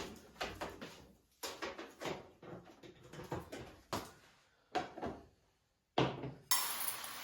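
Kitchen clatter of cupboards, drawers and dishes: a run of irregular knocks and clunks. Near the end a hiss starts suddenly and keeps going.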